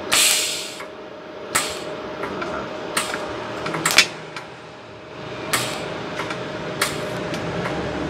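TIG welding torch striking short tack welds on a 304 stainless steel exhaust pipe, fixing a spring-hook stud in place. The arc comes as a series of brief noisy bursts: the first and longest at the start, then five or six shorter ones about a second apart, over a steady faint hum.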